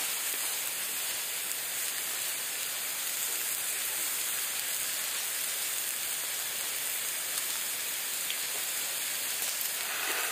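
Steaks sizzling in a frying pan over a campfire: a steady, even hiss.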